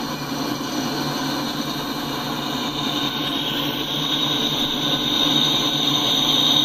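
Freight train passing behind several Norfolk Southern diesel locomotives, their engines running under load with a steady heavy rumble that grows louder. A high steady whine builds over the last couple of seconds.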